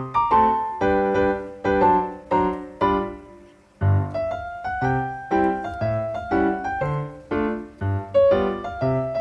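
Background piano music: a light melody of evenly paced notes that each ring and fade, with a short break about four seconds in.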